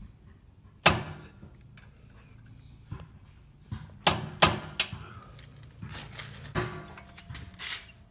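Hammer tapping a steel punch to drive out a rear brake caliper's pad retaining pin, metal on metal: about six sharp taps with a brief ring, one about a second in, a quick run of three around four seconds in, and two more near the end. The pin is stiff and hard to get started.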